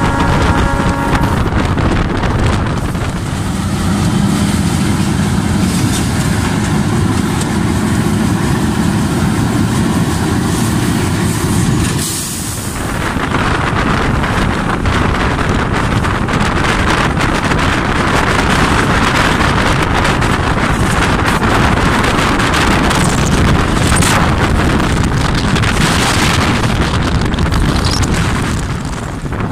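Steady running noise of a Sri Lanka Railways M8 diesel locomotive, heard from its open cab door, with wind buffeting the microphone.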